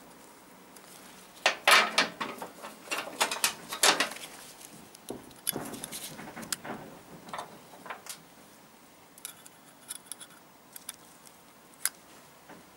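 Small metallic clicks, scrapes and rattles of hand tools on a motorcycle's four-piston front brake caliper: pliers pulling the clip from the brake pad pin, then a screwdriver pushing the pin out. The clatter is busiest in the first half and thins to occasional clicks later.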